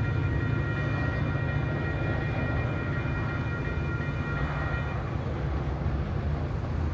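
MBTA commuter rail train's diesel locomotive running steadily as a low rumble, with a high steady whine over it that cuts out about five seconds in.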